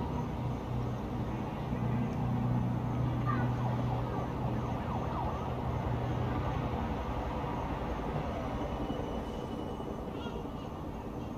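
Distant town traffic ambience: a steady low vehicle engine drone for the first half or more, with faint gliding, wavering tones of a distant siren in the middle.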